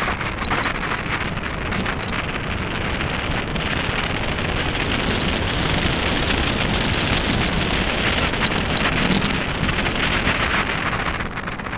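Mountain bike tyres rolling over a loose gravel track, a steady crunching hiss with scattered sharp clicks of stones, and wind on the microphone. It gets louder a few seconds in and eases near the end.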